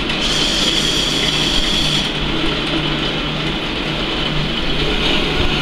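Metal-cutting band saw running with a steady hum and hiss, its blade feeding down into steel threaded rod to cut off a short length; the higher hiss eases about two seconds in.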